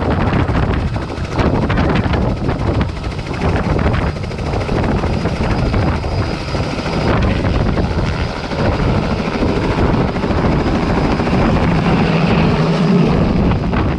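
Robinson R66 turbine helicopter lifting off from snow and climbing away close by: a steady rotor and turbine noise that swells near the end as it passes overhead.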